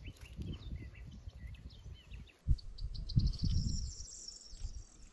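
Small songbirds chirping and singing, with a fast, high trill starting about two and a half seconds in, over irregular low rumbling on the microphone.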